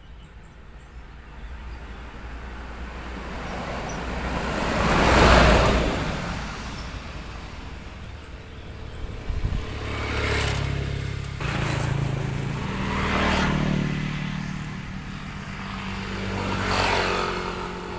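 Road traffic passing close by: a vehicle swells and fades about five seconds in, then several more go by one after another with their engines running.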